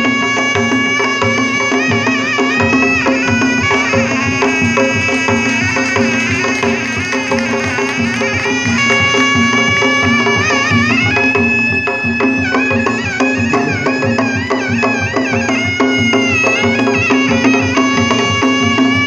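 Sundanese pencak silat accompaniment music: a reed trumpet plays a wavering, ornamented melody over steady drumming.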